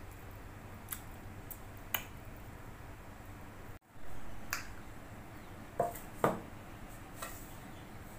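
Scattered sharp clicks of eating rice by hand from a banana leaf, then, after a brief dropout about four seconds in, a few knocks and clinks of empty plates being lifted and set down on a tabletop, over a faint steady hum.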